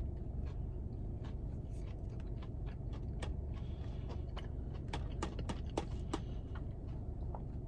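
A person chewing a bite of breaded chicken fry, with soft irregular crunches and mouth clicks over a steady low rumble.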